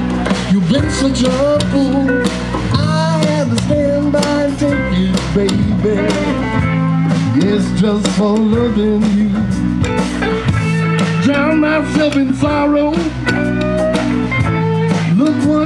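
Live band playing blues rock: electric bass and drums under a lead line of bending notes.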